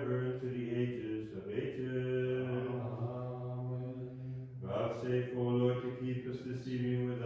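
Orthodox liturgical chant sung in long, sustained phrases, with a low note held steady beneath a melody that moves above it. A new phrase begins about four and a half seconds in.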